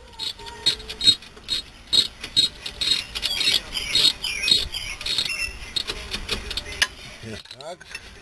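Ratchet wrench clicking in short strokes as a brake caliper bolt is run in, about two to three clicks a second, stopping about five seconds in. Quieter metal handling noises follow.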